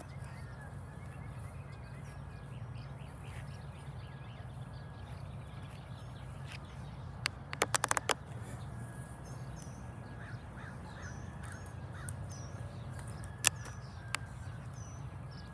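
Outdoor ambience: birds calling faintly over a steady low rumble. A quick run of sharp clicks comes about halfway through, and two more single clicks come near the end.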